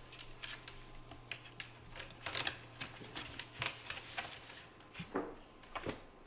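Kittens play-fighting: paws and claws skittering and scuffling on a hard floor in quick, irregular clicks and rustles, with two short falling squeaks near the end.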